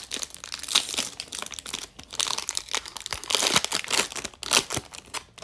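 Foil wrapper of a Topps Inception trading-card pack being torn and peeled open by hand, crinkling and crackling irregularly throughout.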